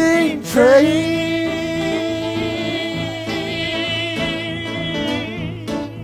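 Live band recording: a single long held note with a slight waver, lasting about five seconds, over the band's steady bass and backing.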